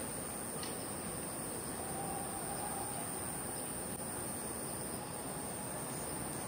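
Steady high-pitched chirring of crickets over a low outdoor background hiss.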